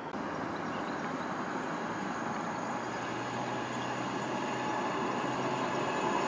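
An Alstom Citadis tram approaching, its running noise on the rails growing slowly louder, with a steady low hum coming in about three seconds in.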